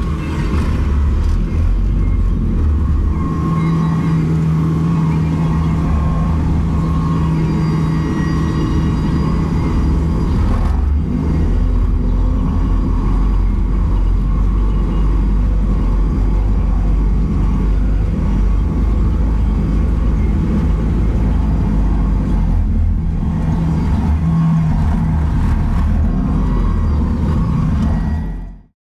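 Bobcat T770 skid steer's diesel engine running at about 2,400 rpm, heard from inside the cab, with a low hum that strengthens for a few seconds at a time. The sound fades out quickly near the end.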